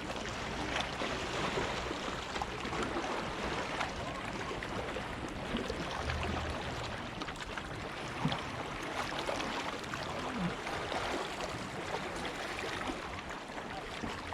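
Sea water washing and lapping against rocks, a steady rush of surf with scattered small splashes and clicks.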